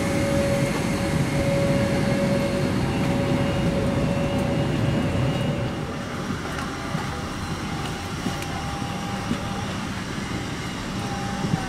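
Steady rushing hum inside a parked Boeing 747-400's cabin, its air conditioning running, with a steady whine through the first half. The noise drops a little about six seconds in.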